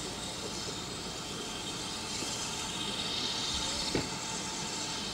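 BR Standard Class 9F 2-10-0 steam locomotive running towards the listener at a distance, a steady hiss and rumble with no whistle, and a single light knock about four seconds in.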